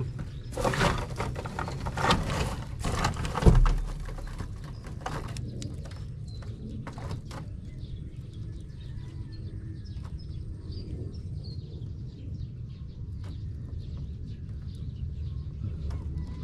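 Handling noise and rustling of dry twigs and grass close to the microphone, with one sharp knock about three and a half seconds in. After that comes a steady low rumble with scattered faint clicks and a few faint bird chirps.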